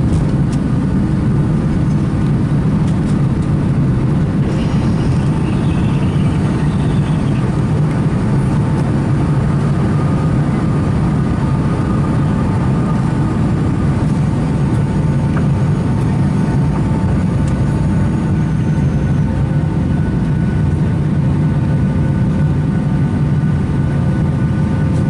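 Boeing 757-200 cabin noise at takeoff power: a steady jet engine drone with a low rumble and a few steady whining tones over it.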